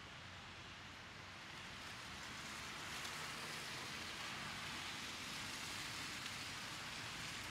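Street traffic hiss: tyres on a wet, snowy road, a steady hiss that swells a little about two seconds in.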